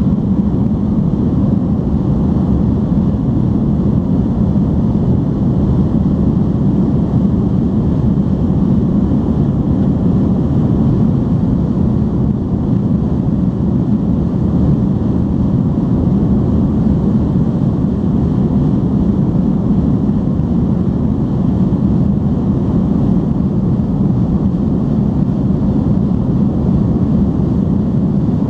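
Steady cabin noise inside an Airbus A310-325 in flight: an even, low rumble of its Pratt & Whitney turbofan engines and the air rushing past the fuselage.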